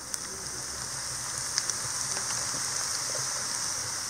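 Potato sticks sizzling in hot oil in a pan on low heat: a steady hiss with a few small crackles, and two sharper pops about a second and a half in.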